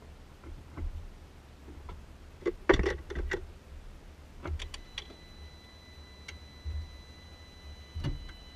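A series of clicks and knocks as the car's electrics are switched on to power a newly fitted H7 LED headlight bulb, the loudest a cluster about three seconds in. About halfway through, a steady high-pitched electronic whine sets in and holds.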